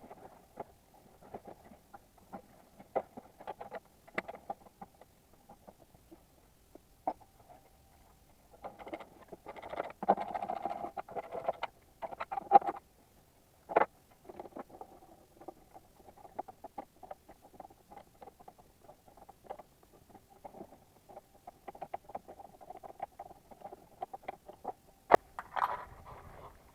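Scattered small clicks, taps and scrapes of hand work on the engine bay, with a denser rattling stretch about nine to twelve seconds in and a few sharper clicks after it. A faint steady hum runs underneath.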